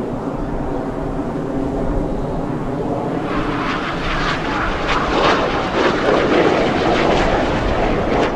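BAE Systems Hawk jets in display flight, their Rolls-Royce Adour turbofans making a steady hum. About three seconds in it swells into a louder, rough, crackling rush as the jets come closer.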